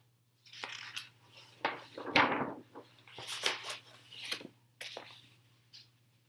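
Paper handling as a large book's pages are turned: a run of short rustles and taps, the biggest about two seconds in, over a faint steady hum.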